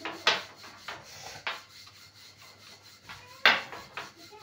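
Irregular rubbing and scraping strokes from rotis being worked by hand on a tawa, the sharpest about three and a half seconds in.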